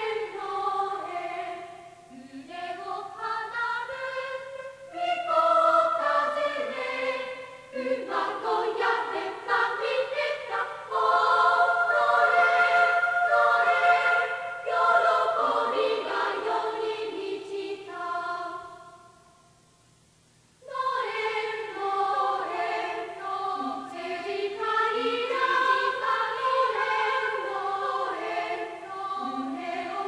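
A choir singing a Christmas hymn, with long held notes in the middle and a short break about two-thirds of the way through before the singing starts again.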